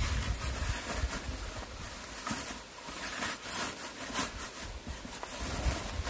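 Woven plastic sack rustling and crinkling as flat white sheets of rubbish are stuffed down into it, with irregular crackles throughout.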